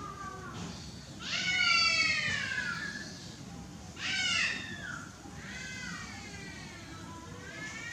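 Monkey crying out in a run of long, high calls, each arching up and falling in pitch, the loudest about a second and a half in and again about four seconds in.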